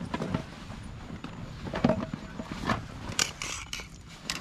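Backpacks and camping gear being handled on a tent floor: irregular rustling, scraping and light knocks of nylon fabric, straps and buckles, the sharpest knock about two seconds in.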